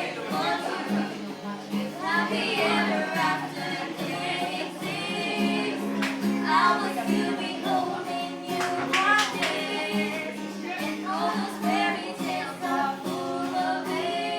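Music with singing over a steady accompaniment of held low notes.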